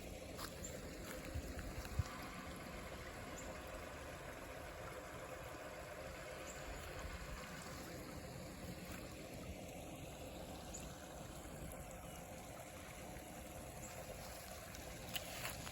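Rainwater runoff flowing, a steady trickling rush of water, with a single sharp tap about two seconds in.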